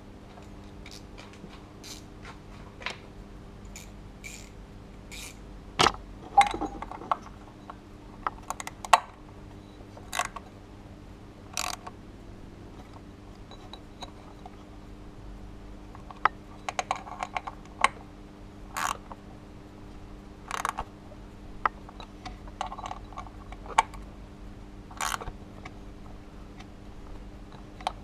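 Hand socket ratchet clicking and metal tools clinking in scattered short clusters while working a bolt on the pulley, over a steady low hum.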